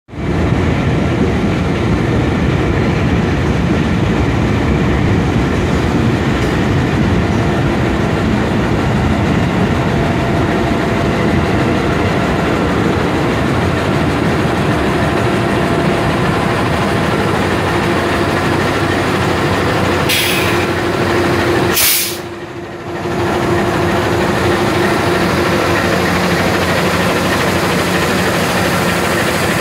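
CC206 diesel-electric locomotive's engine running steadily beside the platform. About two-thirds of the way through there are two short bursts of hiss, then the sound dips briefly before the engine comes back up.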